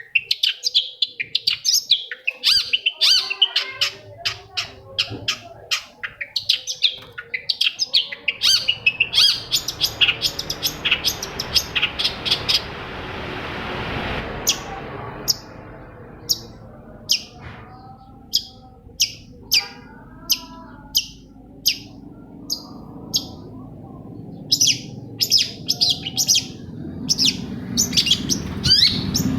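Long-tailed shrike singing: a fast, dense run of sharp high chirping notes, then a slower series of single sharp notes, quickening again near the end. Midway a rushing hiss swells and fades, and a low rumble comes in near the end.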